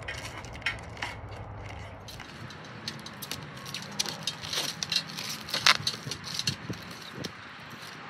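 Blue protective plastic film crinkling and crackling in irregular bursts as it is peeled off the stainless steel parts of a new patio gas heater.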